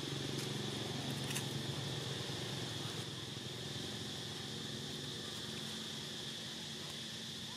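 Steady high insect buzz over the low hum of a distant motor, which fades about two seconds in and returns near the end; a couple of faint clicks about a second in.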